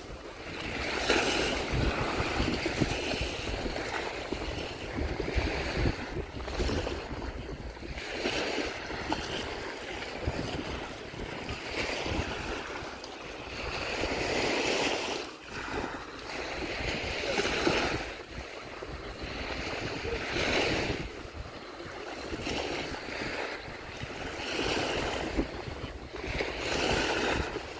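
Small Baltic Sea waves washing up and breaking on a sandy beach, the wash swelling and fading every few seconds.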